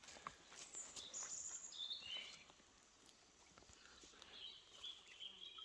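Faint bird calls: a few short, thin, high notes stepping down in pitch over the first couple of seconds, then a longer thin note near the end, over near-silent background.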